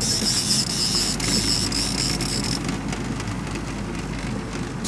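A fishing reel whirring while a fish is fought on a bent trolling rod, stopping about two and a half seconds in. Under it, the boat's engine runs steadily with wind and water noise.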